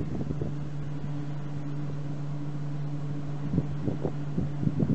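Steady low hum in two tones from the Adwen 8 MW prototype wind turbine, heard at the foot of its tower, with wind rumbling on the microphone. A few short knocks of wind buffeting come near the end.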